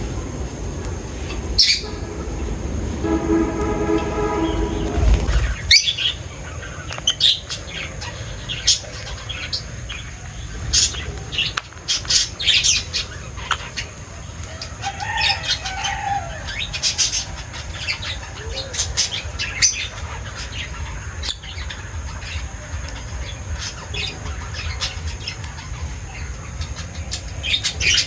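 Small pet birds chirping in short, scattered high calls over a steady low rumble, with one lower pitched call about three to five seconds in.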